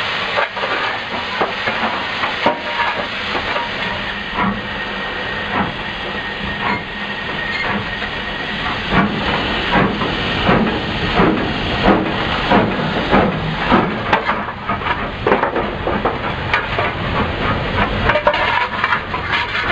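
Cab sounds of an LMS Black Five 4-6-0 steam locomotive: a steady hiss of steam. From about nine seconds in, a regular beat comes in, about one and a half strokes a second, as the engine works along.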